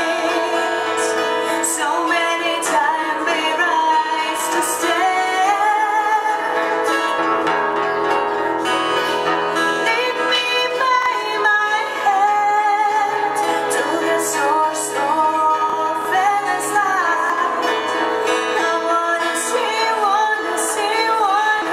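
Live band playing a song: a singer's voice holding a wavering melody over guitar and bass.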